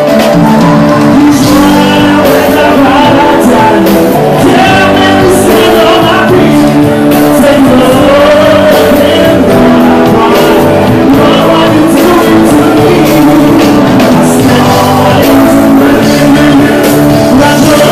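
A male singer performs live with a rock band, amplified through a PA in a large hall: sustained sung lines over drums, cymbals and guitar, loud throughout.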